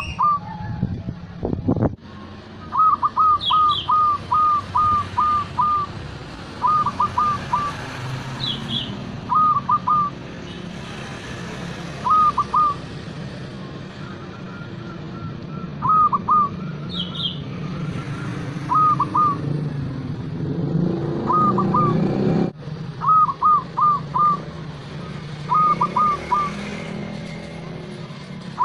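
Zebra dove (perkutut) cooing: clusters of short, clipped coo notes, one run of about eight, then repeated groups of two to four, at intervals of a few seconds. A few faint high chirps sit over a steady low background rumble.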